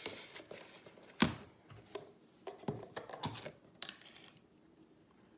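Kitchen utensils and plastic containers being handled on a counter: one sharp knock about a second in, then a handful of lighter clicks and taps.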